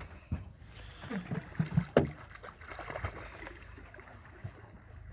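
A few irregular knocks and thumps in a small fishing boat, with a sharp click about two seconds in, over a low rumble of water and wind noise.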